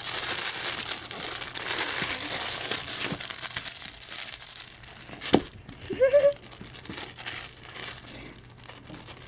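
Puppy playing with a crinkly new toy: steady plastic crinkling and rustling for the first few seconds, then a sharp click and a short high squeak a little past the middle.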